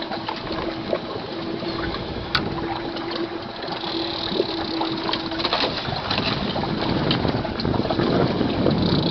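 A steady motor hum on a fishing boat, with small gaps, that stops about five and a half seconds in. Under it runs wind and sea noise, which grows louder after the hum stops.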